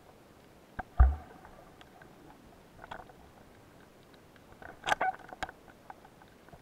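Underwater knocks and clicks heard through the camera housing as a spearfisher moves with a loaded speargun: one heavy knock with a deep thump about a second in, a few light clicks later, and a quick cluster of sharp clicks near the end.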